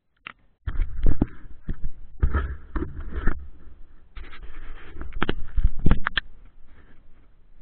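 Handling noise on an action camera's built-in microphone as the upside-down camera is picked up and turned: irregular scraping and rustling with several sharp knocks, the loudest about a second in and again near six seconds.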